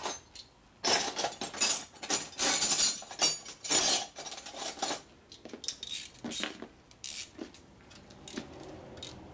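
Small loose metal hardware, screws and bolts, clinking and rattling as it is handled by hand. A dense run of rattling in the first half gives way to separate sharp clinks with a short high ring.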